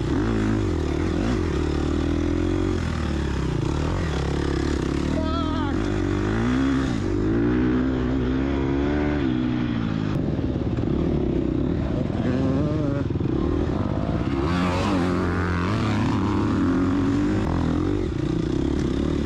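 2022 Gas Gas EX250F dirt bike's four-stroke single-cylinder engine running hard on a trail, its pitch rising and falling as the throttle is worked on and off.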